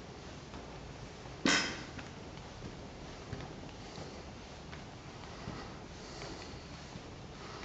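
Soft footsteps going up a carpeted staircase, faint over room tone. About a second and a half in comes one short, loud rush of noise.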